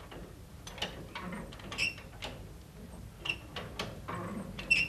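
Irregular mechanical clicks and knocks, about eight in all and unevenly spaced, over a low steady hum.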